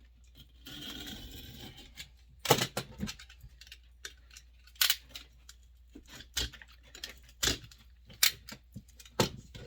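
Old duct tape being picked and peeled off a wooden axe handle. A scratchy tearing rasp lasts about a second near the start, then scattered sharp clicks and taps of hands working the handle.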